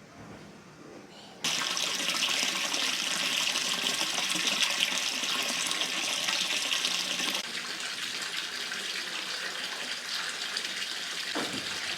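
Tap water running hard into a tub, filling a bath. It is turned on with a sudden start about a second and a half in, and the flow gets a little quieter about halfway through.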